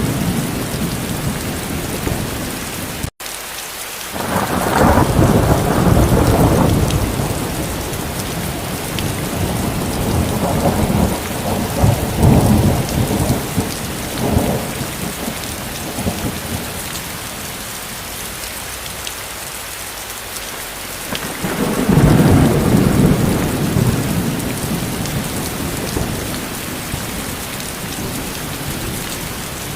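Steady heavy rain, with rolls of thunder rumbling up three times: a few seconds in, again around the middle with a couple of sharper cracks, and near the end. The sound cuts out for a split second about three seconds in.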